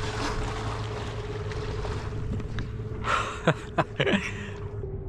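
A sailboat's motor runs with a steady hum and rumble under the rush of water and wind. About three seconds in, a man lets out a few short laughing cries that fall in pitch.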